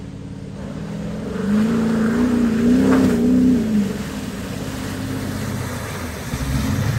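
Porsche Cayenne S 4.5-litre V8 revving under load as the SUV churns through deep mud. The engine note wavers up and down, eases off about four seconds in, and climbs again near the end, with mud and water splashing from the tyres.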